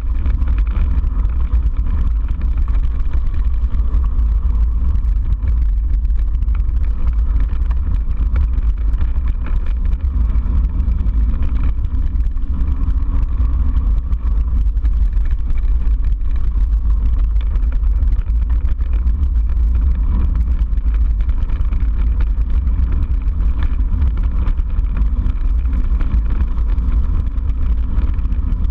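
Wind buffeting an action camera's microphone with a steady low rumble, over mountain-bike tyres crunching on gravel and the bike rattling.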